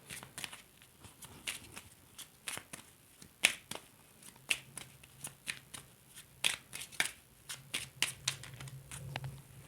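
A Lenormand card deck being handled and laid out. It makes a run of sharp, irregular card clicks and slaps, roughly one or two each second.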